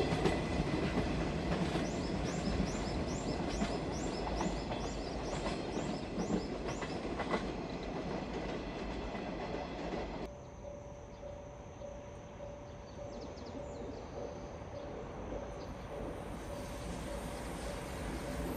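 A container freight train's wagons rumbling and clattering over the rails as it moves away, slowly fading. About ten seconds in, the sound cuts to a quieter scene with a steady electronic tone and the low noise of an approaching EF510 electric locomotive's train, growing slowly louder.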